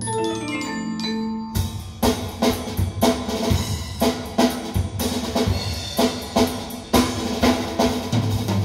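Percussion-led music played back from a record on an SME Model 20/12 turntable through Magico loudspeakers. It opens with a quick falling run of struck, ringing notes, and about a second and a half in a steady drum beat starts, with mallet percussion over it.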